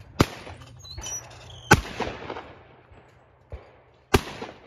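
Three shotgun shots fired at clay targets, each a sharp crack with a short fading echo. Two come about a second and a half apart, and the third falls near the end.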